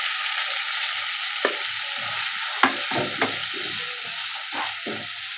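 Ground spice masala sizzling in hot oil in a kadai, with a steady hiss, while a wooden spatula stirs it and knocks against the pan several times.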